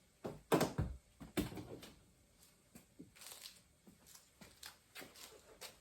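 Sharp clicks and knocks from the car door's outer handle cover and handle parts being pulled loose and handled, a few loud ones in the first second and a half, then lighter ticks.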